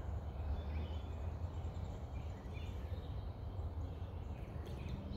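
Outdoor backyard ambience: a steady low background rumble with a few faint, short bird chirps.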